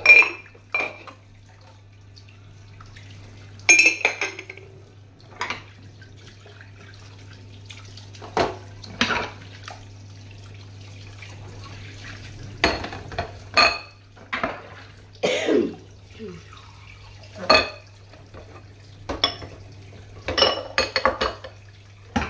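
Hand-washing dishes at a stainless-steel sink: glass tumblers and ceramic bowls clink and knock against each other and the sink at irregular moments, some clinks briefly ringing, over a kitchen tap running steadily. A steady low hum runs underneath.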